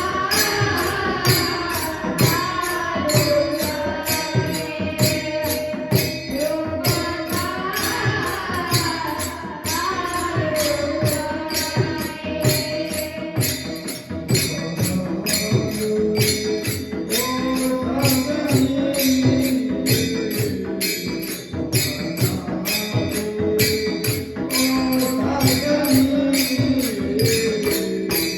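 Marathi kirtan music: a man singing a devotional melody over a steady beat of mridang drum and jingling hand cymbals, with held reed-like tones beneath the melody in the second half.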